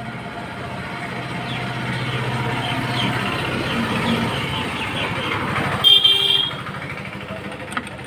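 A motor vehicle's engine running, growing louder as it comes nearer, with a short horn toot about six seconds in.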